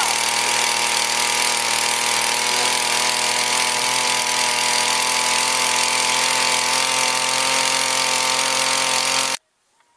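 Gas-powered blender's small two-stroke engine running at a steady high speed, blending a drink in its jar. It stops abruptly near the end.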